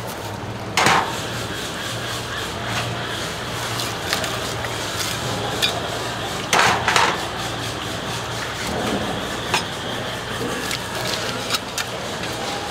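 Knife scraping and slicing along a whole tuna's skin and bones, with scattered short scrapes and two louder rasping bursts, about a second in and just past the middle, over a steady low hum.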